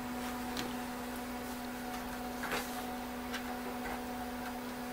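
A few scattered light clicks from the front-panel controls of a Tektronix TDS 340 oscilloscope being operated, the loudest about halfway through, over a steady hum.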